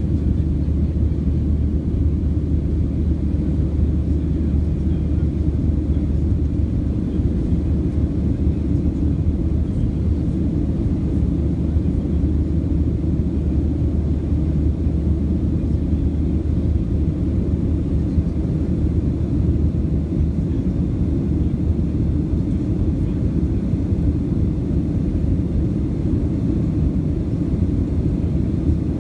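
Steady low rumble inside the cabin of a Boeing 737-700 climbing after takeoff, from its CFM56-7B turbofan engines and the airflow. A deep drone within it eases a little past the middle.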